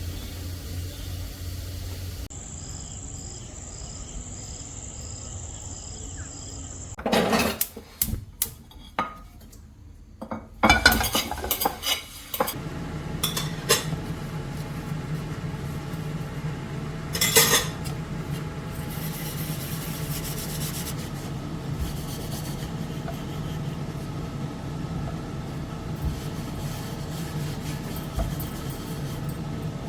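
Kitchen work: metal utensils and dishes clatter and clink against each other, then a steady low hum runs under light scraping and clinking of a spoon in a pan.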